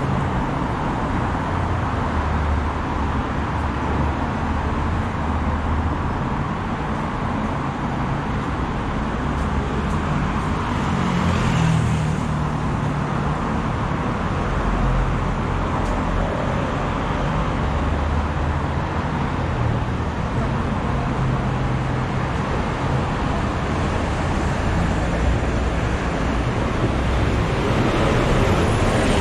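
Steady city road traffic: car and bus engines with tyre noise, a vehicle swelling past about twelve seconds in, and a double-decker bus passing close alongside near the end.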